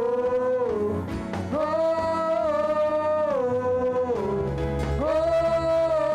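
Live church worship music: a slow melody of long held notes, each sliding down to a lower note and back up, with a low bass note that comes in about four seconds in.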